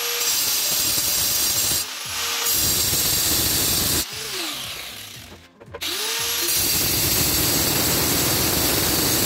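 Angle grinder with a cutoff wheel cutting steel. It spins up and cuts, is switched off about four seconds in and winds down, then starts again about a second and a half later and cuts on.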